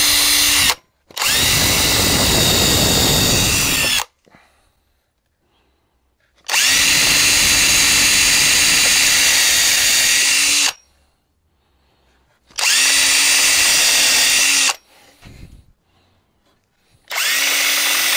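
DeWalt cordless drill running into pine wood in about five separate runs of two to four seconds each, each one a steady motor whine, with short quiet pauses between runs.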